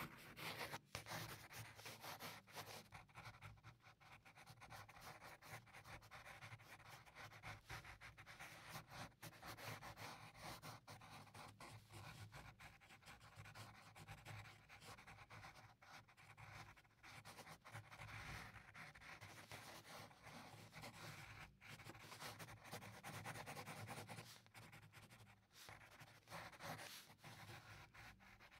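Faint scratching of a pencil on drawing paper, with stretches of a pen-style eraser rubbing the paper; short strokes with brief breaks between them.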